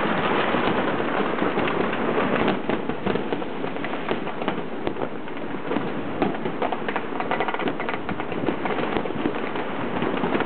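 Many fireworks and firecrackers going off at once: a continuous dense crackle of overlapping pops and bangs with no let-up.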